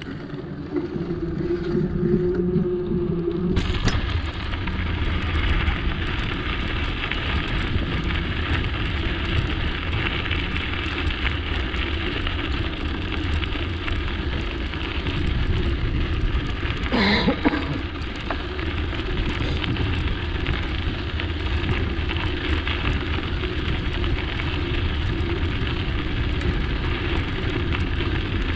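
Wind buffeting the microphone during a bicycle ride: a steady, low rush of noise that sets in sharply about three and a half seconds in. A brief sweeping sound cuts through it near the middle.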